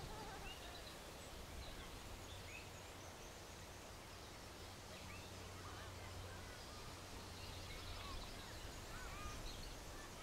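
Wild birds calling with short, scattered chirps and whistles over a faint, steady outdoor hiss, with a low steady hum underneath. A few calls cluster in a quick run near the end.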